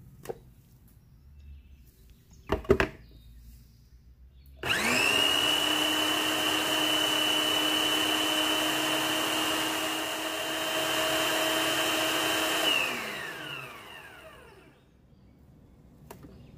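Electric food processor blending onion, tomato, peppers and spices into a marinade paste: the motor starts suddenly with a steady whine, runs evenly for about eight seconds, then switches off and winds down with a falling pitch. A few sharp clicks come before it starts.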